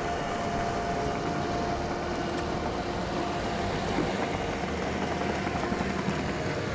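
Skid steer engine running steadily as the machine works, with a few faint steady whining tones over the rumble.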